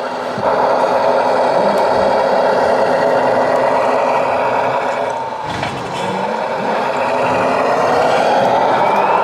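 Radio-controlled model truck running under load, a steady motor and drivetrain noise that dips briefly midway and rises in pitch near the end.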